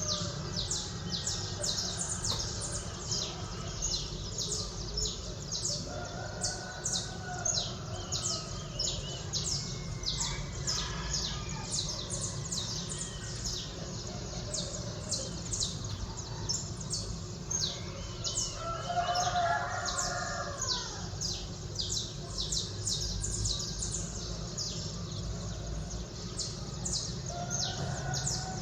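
Dawn chorus of small birds chirping rapidly and continuously, with a rooster crowing a few times at a distance, heard as longer, lower calls about a fifth of the way in, about two-thirds of the way in, and near the end, over a steady low city rumble.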